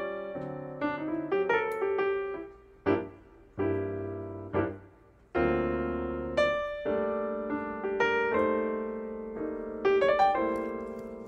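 Background piano music: a light melody of struck notes, with two short breaks about three and five seconds in.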